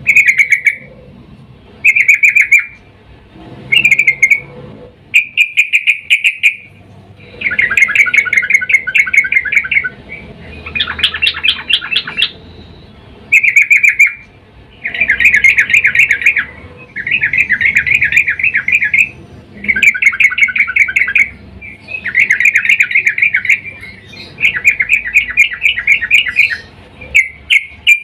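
Yellow-vented bulbul (trucukan) giving repeated chattering calls: short bursts at first, then longer rapid rattling phrases of about two seconds with short pauses between. The uploader presents it as a female calling to a male in breeding mood.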